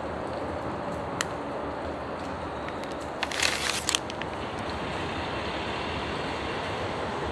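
Steady hum of distant traffic, with a short burst of crinkling plastic packaging about three seconds in, lasting under a second, and a faint click about a second in.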